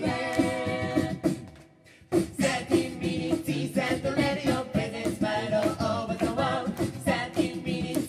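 Mixed-voice a cappella group singing with beatboxed percussion. A held chord fades out into a brief full stop about two seconds in, then the group comes back in together on a sharp beat.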